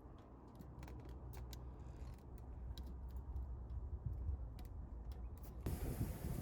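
Scattered light clicks and ticks over a low steady rumble. Near the end a hiss comes in abruptly, with soft low thumps.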